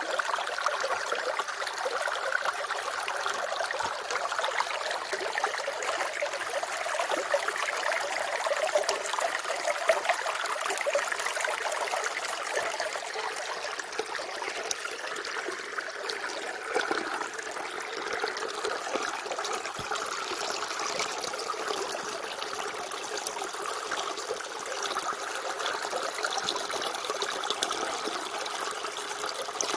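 Running water trickling and babbling steadily, a continuous splashy flow with many small drips and splashes and no deep rumble.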